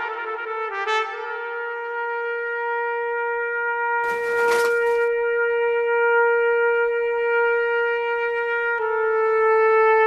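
Background music: a slow solo brass melody that holds one long note for most of the time, then changes to another note near the end. A short hiss comes in about four seconds in.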